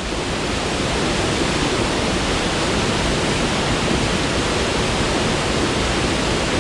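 Waterfall pouring in a steady, loud rush of falling and splashing water, swelling over the first second or so.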